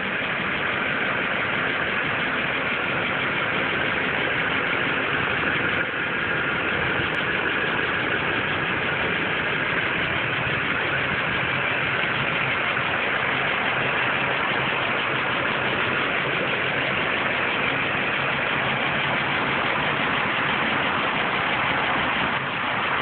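Custom Cadillac Escalade tow truck's engine idling steadily under an even hiss.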